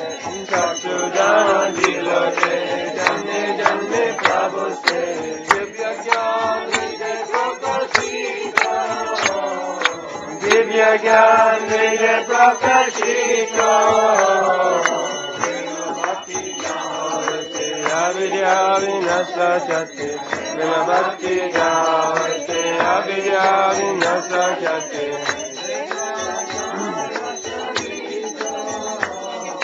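Devotional kirtan chanting: a sung mantra with instrumental accompaniment, kept in time by a regular beat of sharp metallic-sounding strikes.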